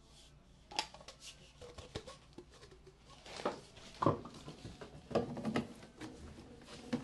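Plumbing parts and tools being handled: an irregular run of clicks, knocks and short scrapes of hard objects, with the loudest knocks about halfway through.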